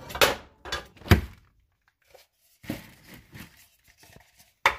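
Knocks of a metal saucepan being set down on an electric stove, the loudest about a second in, then the rustle and crinkle of a plastic bag being handled, with a sharp tap near the end.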